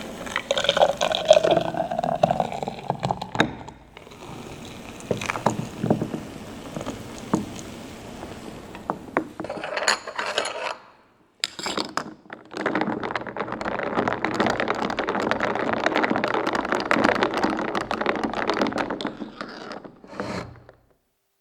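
Liquid poured into a cup with a rising tone, a few small clinks of cup and utensils, then about eight seconds of rapid, even frothing of the matcha latte.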